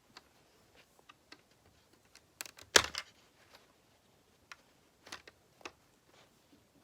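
Plastic Lego bricks clicking and clattering as they are handled and pressed together: scattered small taps, with a louder cluster of clicks about three seconds in.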